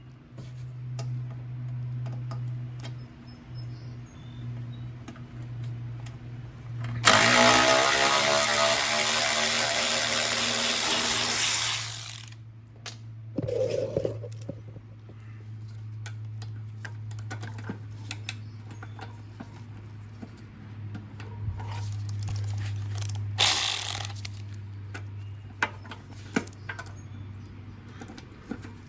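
Cordless electric ratchet running: a motor whir that rises in pitch as it spins up and runs for about five seconds, then a second short burst later on, as fasteners are backed off on the mower engine. A steady low hum and small clicks of handling sit underneath.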